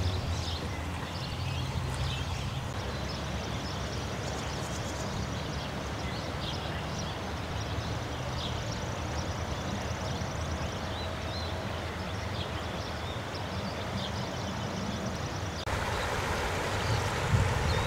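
Outdoor ambience of flowing floodwater: a steady rushing hiss with a low rumble and scattered faint high chirps, a little louder after a cut near the end.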